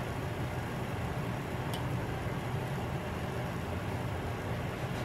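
Steady low background hum and hiss, with one faint light click near the middle.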